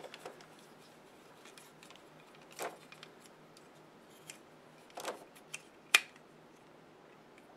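Handling noise: a few small scattered clicks and taps, the sharpest about six seconds in, over a low steady hum.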